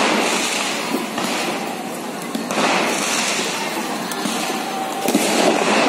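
Three loud explosive bangs, about two and a half seconds apart, each trailing off in a rushing echo.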